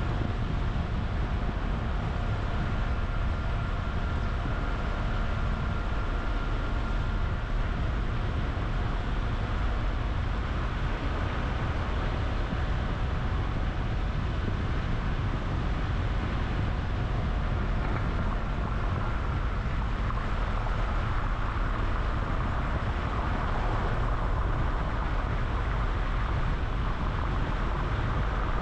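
A car driving, with a steady run of engine and road noise.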